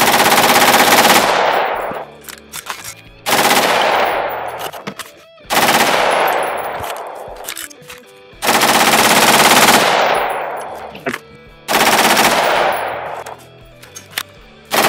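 Full-auto AR-15 with a Melonite-nitrided barrel firing long bursts during a barrel meltdown test, the barrel glowing white-hot from sustained fire. There are five bursts, each about a second long and spaced two to three seconds apart, each trailing off in a long echo, and a sixth starts at the very end.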